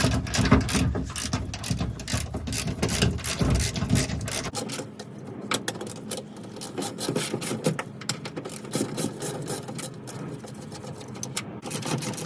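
Socket ratchet clicking rapidly as it backs off two 13mm nuts, with heavier knocking and handling in the first few seconds while the nuts break loose.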